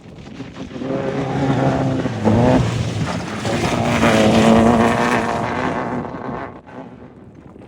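Off-road race vehicle's engine going past at speed: it swells in, its revs jump sharply about two seconds in, and it fades away after about six seconds.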